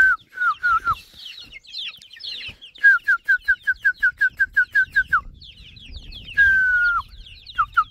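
Young chickens peeping: runs of short, high, falling notes, about five a second, with one longer drawn-out falling call near the end.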